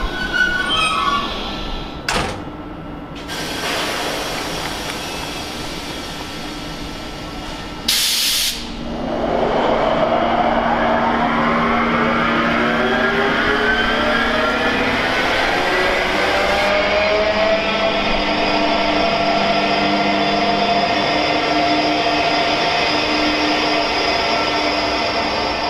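A train pulling away: a short hiss of air about eight seconds in, then a whine from its drive that rises in pitch as it accelerates and levels off to a steady tone.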